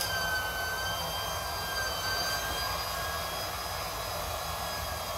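Small battery-powered portable air pump running steadily while inflating an inflatable kayak, a continuous motor whir with a high whine whose pitch dips slightly near the start and then recovers.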